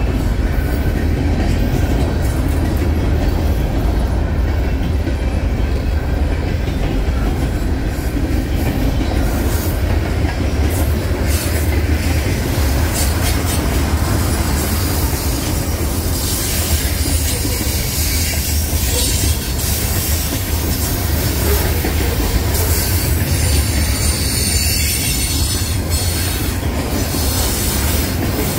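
Freight cars of a manifest train rolling past: a steady, loud rumble of steel wheels on rail with scattered clicks and clacks as the wheels pass over rail joints.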